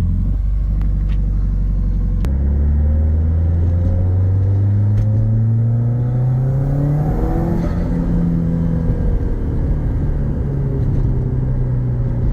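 A 2005 Subaru Impreza WRX STI's turbocharged flat-four running at idle: a steady low drone whose pitch climbs slowly over the first several seconds and then holds. Partway through, a second sound rises and then falls in pitch, peaking about seven to eight seconds in.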